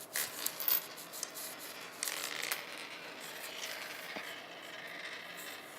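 Two fidget spinners spinning on a tabletop, making a steady rubbing whir, with a few light clicks in the first second.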